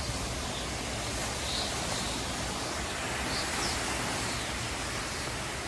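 Storm wind and blowing rain, a steady, even hiss.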